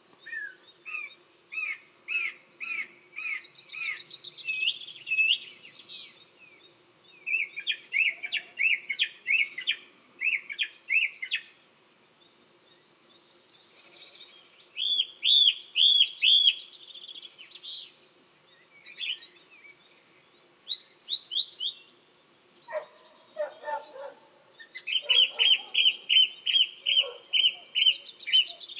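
Song thrush singing: loud bursts of short, clear whistled notes, each phrase repeated several times over before the bird pauses and moves on to a new phrase. A lower call sounds briefly about two-thirds of the way through.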